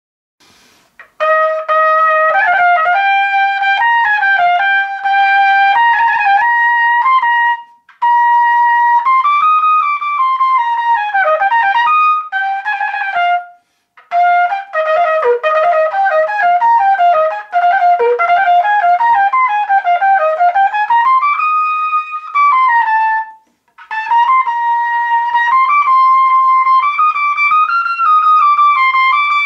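Solo trumpet playing a high melody, in four phrases separated by short breaks, with quick runs of notes in the middle phrases.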